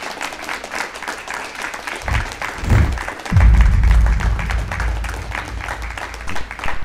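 Audience applauding, with outro music coming in about two seconds in and its deep bass growing louder a second or so later.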